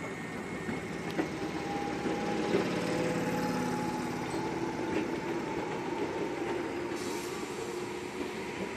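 Tokyu 8000 series electric commuter train rolling slowly past on the rails, a steady running noise with a faint motor hum and a few sharp clicks from the wheels.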